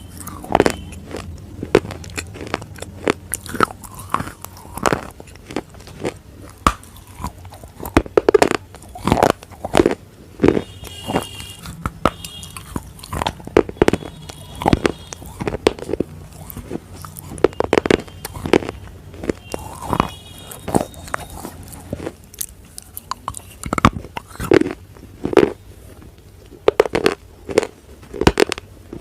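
A person biting into and chewing pieces of slate bar: sharp, crisp crunches at an irregular pace, about one or two a second, in clusters with short pauses between.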